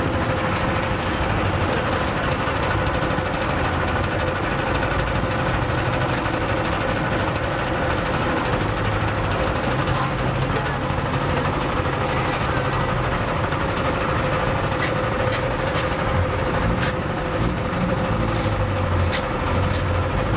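Electric stainless-steel sugarcane juicer running with a steady hum as its rollers crush cane stalks being fed through. From about halfway on, sharp cracking clicks come every second or so.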